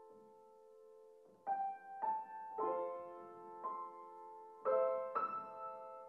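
Gentle piano music: a held chord fades for the first second or so, then new chords are struck every half second to a second, each ringing on as it dies away.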